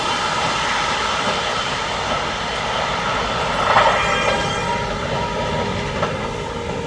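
Keikyu electric trains running through the station: a steady rolling rumble with a whine of several held tones from the motors, slowly easing off toward the end.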